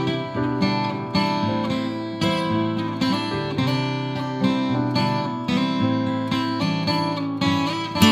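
Background music: acoustic guitar playing, a continuous run of plucked notes that ring and fade.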